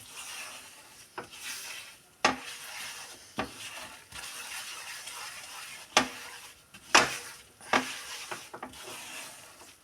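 A ladle stirring and scraping gram flour as it roasts in ghee in a frying pan, over a soft sizzle, with sharp knocks of the ladle against the pan about once a second.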